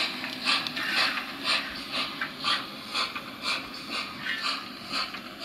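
A DCC sound-fitted OO gauge model of an Ivatt Class 2MT steam locomotive, No. 46440, chuffing slowly as it runs, about two even chuffs a second, from its onboard speaker.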